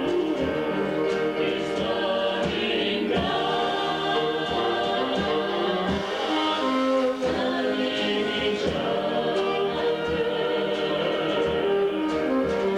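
A small vocal group singing a song in harmony over an instrumental accompaniment with a steady, moderate beat.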